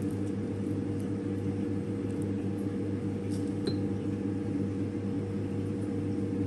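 A steady electric appliance hum: a low drone with several even tones above it, unchanging throughout, with a few faint clicks.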